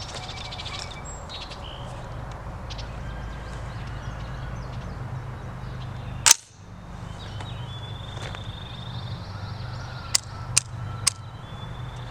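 A single loud gunshot about six seconds in, then three quicker, quieter shots about half a second apart near the end, over a steady low rumble.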